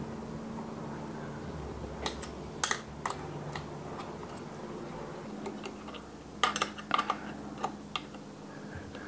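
Small metallic clicks and clinks of an Allen key working in the clamp bolts of an e-bike handlebar stem as the bolts are slackened. There is a cluster of sharp clicks about two to three seconds in and another about six and a half to seven seconds in, over a faint steady hum.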